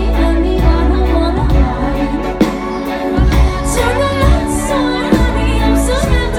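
Live pop band playing with a woman singing over it: heavy bass and a steady drum beat under the vocal line.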